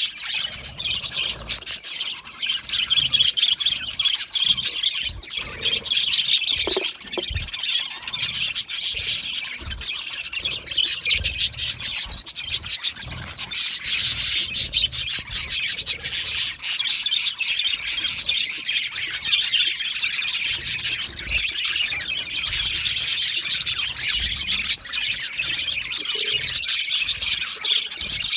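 Budgerigars chattering and warbling together, a continuous busy mix of chirps, clicks and squawks from several birds at once.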